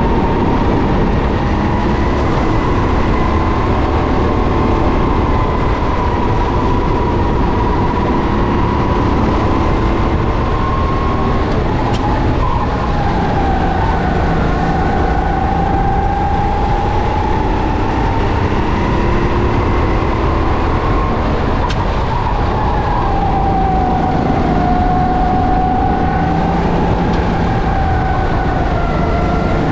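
Kart engine at racing speed, running at high revs with its pitch slowly rising and falling, and dropping off sharply twice, about twelve and twenty-two seconds in, before climbing again.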